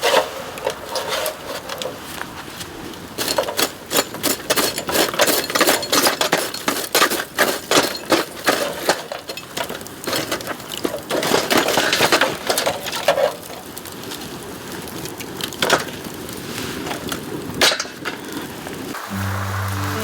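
Bamboo fire crackling and popping, a dense run of irregular sharp cracks that comes and goes in bursts. Music starts near the end.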